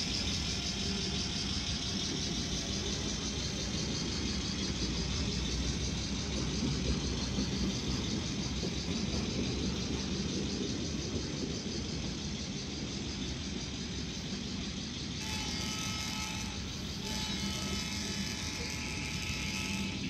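N scale model train running past on its track: a steady whir of the locomotive's motor and rolling wheels, with a faint high whine. About fifteen seconds in, a few steady tones come in over it.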